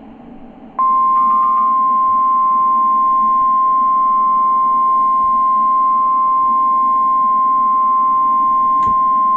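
NOAA Weather Radio 1050 Hz warning alarm tone: one loud, steady single tone that comes in about a second in over faint receiver hiss and holds. It signals that a warning message follows, here a severe thunderstorm warning.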